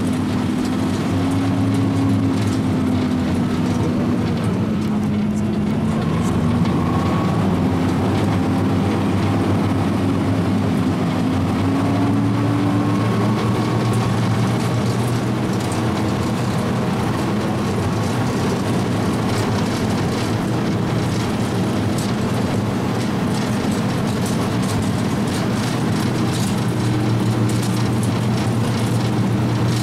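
Type 94 Beach Minelayer's engine running steadily as the vehicle drives along, its note drifting gently up and down, with light rattling from the vehicle.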